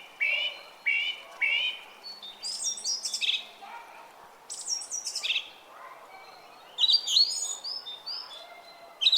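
Several songbirds singing: a run of four short, alike chirps in the first two seconds, then loud falling whistled notes, and a quick cluster of chirps about seven seconds in.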